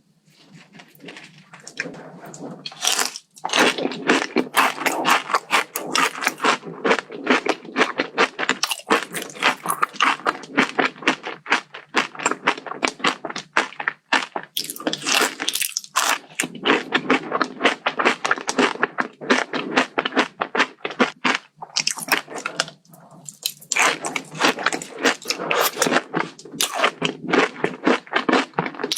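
Close-miked crunching and chewing of a kadayif-filled chocolate dessert: many rapid crisp crackles with brief pauses between bites.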